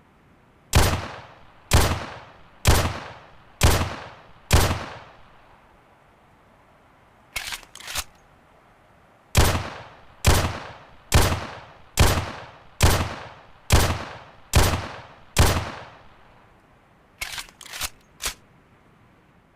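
11.4 mm (.45-calibre) pistol firing single shots: five shots about a second apart, then three quieter clicks, then eight more shots slightly under a second apart, each with a short echoing tail. A cluster of four quieter clicks comes near the end.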